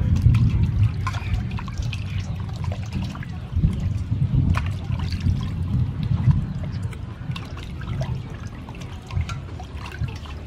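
Water sloshing and splashing in a stainless steel bowl as hands wash raw pork belly slices, with water trickling off the meat as it is lifted out. The splashes come irregularly and are strongest at the start.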